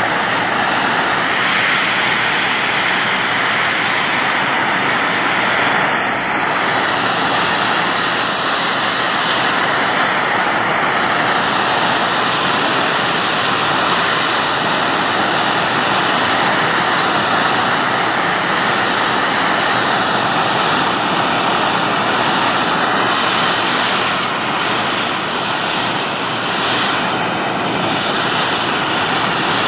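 Hand-held gas torch flame burning with a steady hiss as it heats bare plasma-cut steel, heat-tinting it blue and brown.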